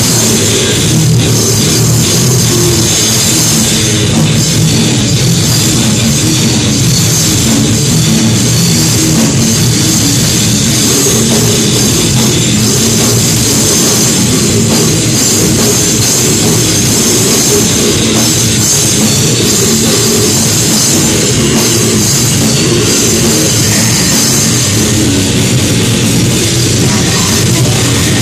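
A heavy metal band playing live: electric guitar over a drum kit, loud and unbroken throughout.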